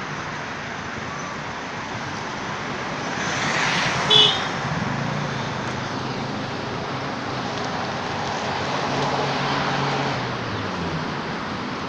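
Steady road traffic with vehicles passing. A brief sharp, high-pitched sound about four seconds in is the loudest moment, and a low engine hum swells after it and fades out near the end.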